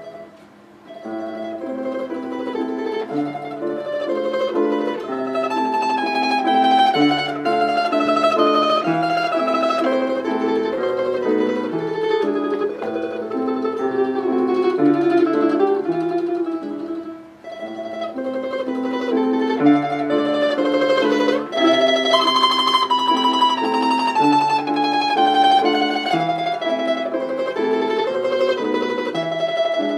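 Domra played tremolo, a slow romance melody in long sustained notes over piano accompaniment. The playing pauses briefly about a second in and again at about 17 seconds, between phrases.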